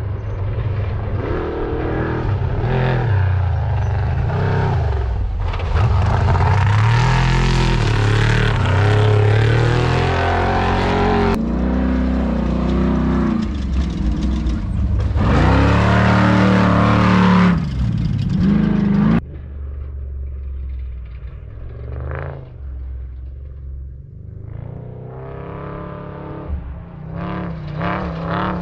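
Off-road desert race vehicles' engines revving hard as they race past, their pitch rising and falling with the throttle. The sound changes abruptly twice, as separate passes are cut together. It is quieter in the last third, with an engine climbing in pitch near the end.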